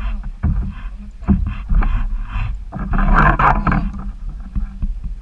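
Wind buffeting the microphone and water lapping and knocking against a kayak, with a louder rush of noise about three seconds in.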